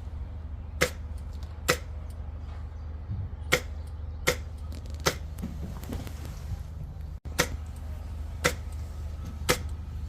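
Airsoft gun firing single shots: eight sharp cracks at uneven gaps of about a second, over a steady low rumble.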